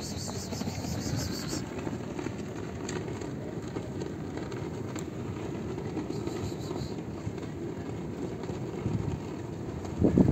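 Wind buffeting the microphone: a steady, fluctuating low rumble, with stronger gusts near the end.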